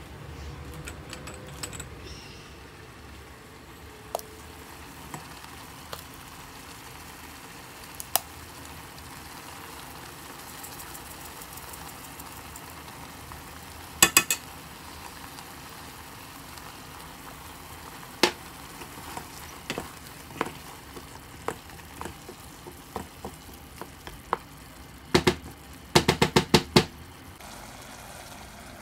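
Wooden spoon stirring a tomato and ground-meat sauce in a pot, over a steady low sizzle of the cooking sauce. Scattered knocks of the spoon against the pot, with a quick run of them near the end.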